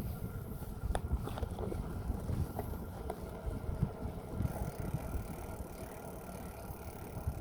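Bicycle being ridden: a steady low rumble of tyres on the path with a few light clicks and rattles about a second in and again around three seconds in.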